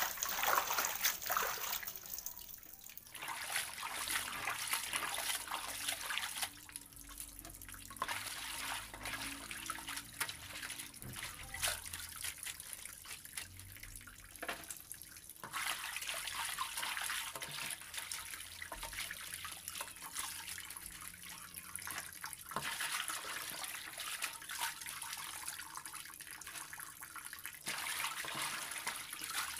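Water pouring steadily into a large tub of sliced potatoes, with splashing and sloshing as gloved hands stir the slices and scoop them up in a plastic colander.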